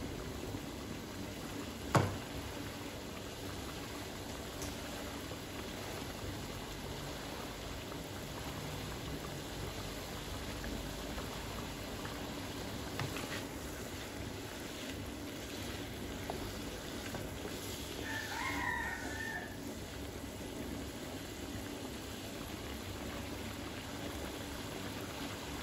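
Coconut-milk curry simmering in a wok over a gas burner, a steady low bubbling hiss. A single sharp knock about two seconds in, and a rooster crowing briefly in the background a little past the middle.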